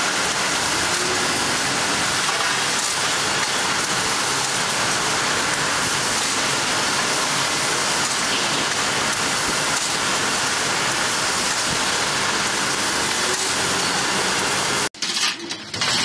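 Loud, steady machinery din of a ceramic tile roller-conveyor production line: a dense even hiss with no clear rhythm. It cuts off suddenly near the end, and light metallic clinks follow.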